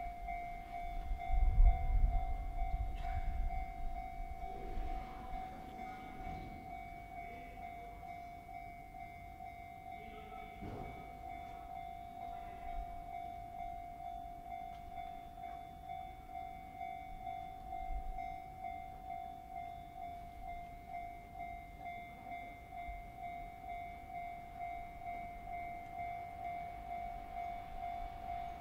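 Shin-Keisei 8900 series electric train running, its low rumble loudest about two seconds in, with falling squeals a few seconds later and again about ten seconds in. A steady pulsing warning tone sounds over it.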